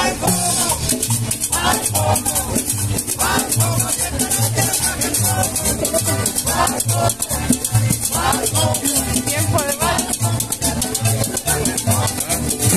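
Upbeat Latin dance music with a steady bass beat and maracas shaking throughout; a voice cuts in over it every second or two.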